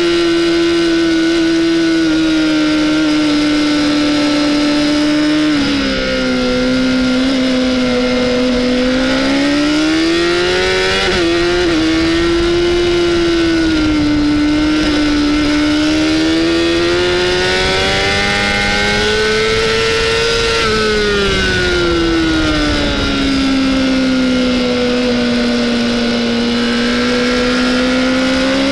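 Honda CBR600RR inline-four engine at high revs. Its pitch rises and falls with throttle and gear changes: a sudden drop about six seconds in, a climb to its highest pitch around twenty seconds, then a fall, and a rise again near the end.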